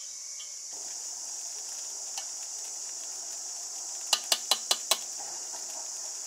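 Steady high chirring of an insect chorus. About four seconds in, a utensil clacks five times in quick succession against a metal pot of rice.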